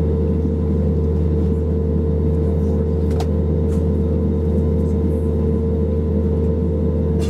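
Cabin noise inside an Airbus A320neo taxiing: a steady engine and airflow drone with a strong low hum and a constant mid-pitched tone, and a faint click about three seconds in.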